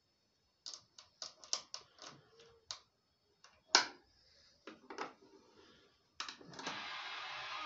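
Sharp clicks and taps of a plug on a lead being fitted into the panel sockets of a 1926 Elstree Six valve radio receiver, the loudest nearly four seconds in. About six seconds in, the set's output comes up suddenly as a steady hiss with a faint broadcast in it.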